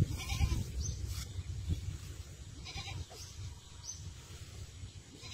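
Livestock bleating: a short wavering bleat about half a second in, another near three seconds, and a third starting at the very end, over a low steady rumble.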